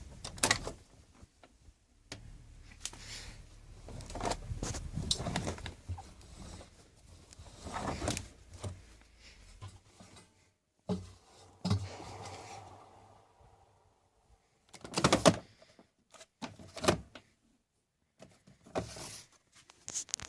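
Handling noises at a washing machine: scattered clicks, knocks and rustling, with several sharper knocks in the second half, typical of the door being opened and the washing being handled once the programme has finished.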